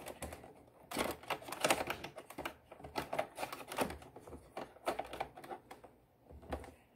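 Irregular clicks, knocks and scrapes of hands working in the plastic battery compartment of a CyberPower UPS, handling the battery leads and the sealed lead-acid battery. The clicking starts about a second in and stops near the end.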